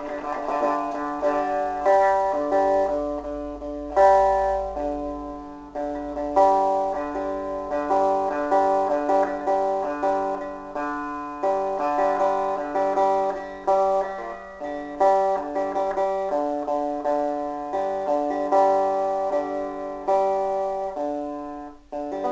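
Gibson EDS-1275 double-neck electric guitar, played on its six-string neck through its humbucker pickups: a steady run of strummed chords and picked notes, with a hard-struck chord about four seconds in and a brief break shortly before the end.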